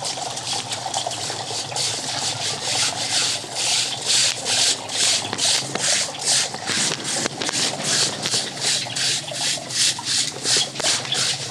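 A hand sweeping back and forth over small white aquarium gravel in a concrete channel, the stones scraping and shifting under the palm. The strokes become regular, about two or three a second, from about two seconds in.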